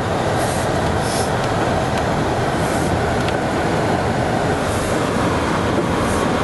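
Dodge Caravan minivan driving on a wet, slushy road: a steady, loud rumble of tyres and engine.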